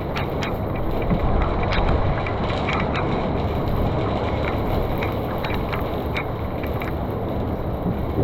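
Rain: scattered sharp ticks of raindrops over a steady low rumble of rain and wind noise.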